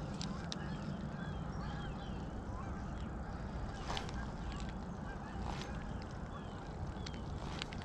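Faint bird calls, short chirps, over a steady low rumble of open-air ambience, with a few short sharp clicks or pops, one about four seconds in and another about a second and a half later.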